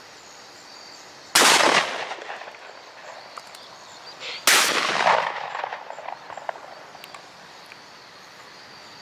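Two shotgun shots about three seconds apart, each a sharp crack that trails off over half a second or so.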